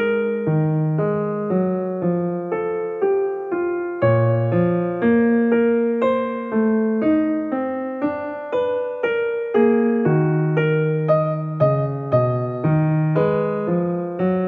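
Background piano music: a melody of evenly spaced notes, about one or two a second, over lower notes.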